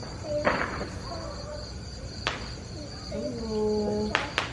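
Crickets trilling steadily as a high, unbroken background tone. A person's voice is heard briefly near the start and again about three seconds in, with a few light clicks near the end.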